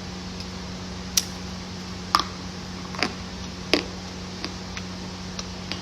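Crunchy food being bitten: four loud, sharp crunches about a second apart, then a few fainter ones, over a steady low hum.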